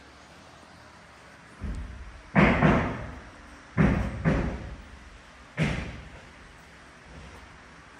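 About six loud, heavy bangs at irregular intervals, some in quick pairs, each trailing off with an echo through a large, hollow unfinished building.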